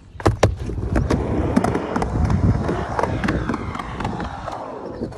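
Skateboard dropping in on a wooden mega ramp: two sharp clacks as the board goes down about a quarter second in, then the wheels rumble down the plywood with many sharp clicks, fading near the end.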